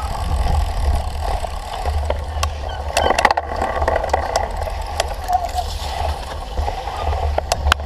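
Wind buffeting the microphone of a cyclocross bike racing over rough ground, with the bike rattling and sharp knocks about three seconds in and again near the end.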